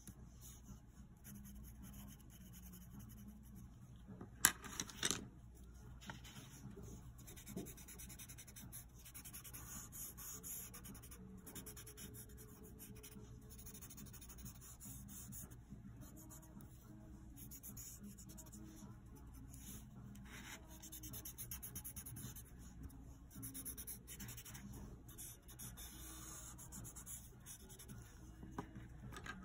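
Pencil scratching on paper in repeated shading strokes. There is a sharp tap about four and a half seconds in and a smaller one a few seconds later.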